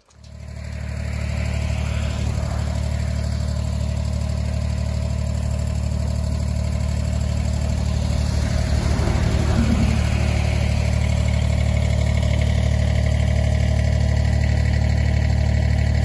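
Small Kubota compact tractor's diesel engine idling steadily, fading in over the first couple of seconds.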